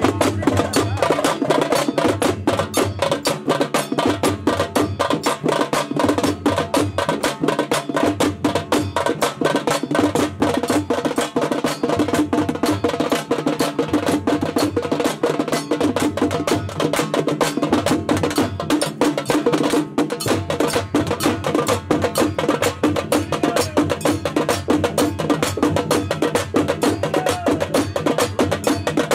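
Traditional festival procession drumming: fast, dense drum strokes keeping up a driving beat without a break.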